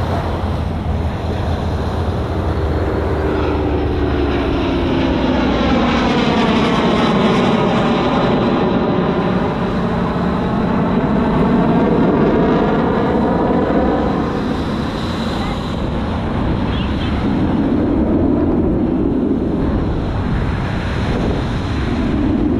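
An airplane flying past: its engine sound swells, drops in pitch as it passes, and is loudest about twelve seconds in before easing off.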